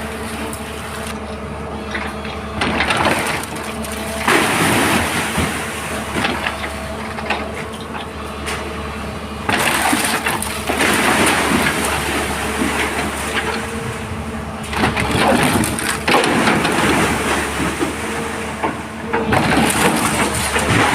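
Excavator engine running steadily under repeated loud bursts of crunching, rushing noise as the machine breaks up the old well, several times over.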